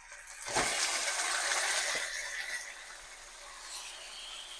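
Marinated chicken pieces going into hot oil with fried onions in a frying pan, sizzling, the sizzle starting about half a second in and fading after a couple of seconds. Two light knocks sound during it.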